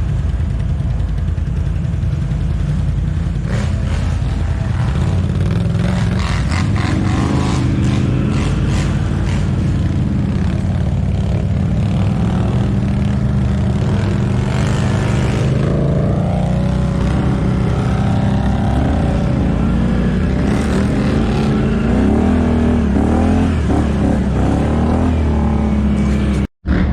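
ATV engine running on a trail, its revs rising and falling, with scattered knocks and rattles. The sound cuts out for an instant near the end.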